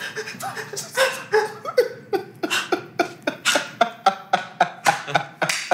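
A man laughing hard: a quick run of short ha-ha bursts, about three or four a second.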